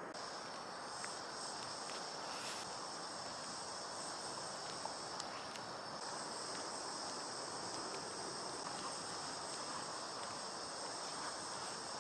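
Gas canister camping stove burning steadily under a frying pan, a constant hiss with a thin, high, steady whine on top.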